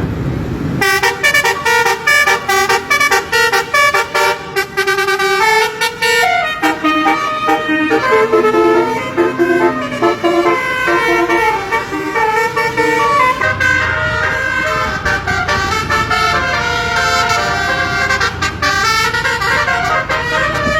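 Multi-tone "telolet" bus horn of the basuri type playing a fast melody of stepping notes. A low hum joins under it about two-thirds of the way through.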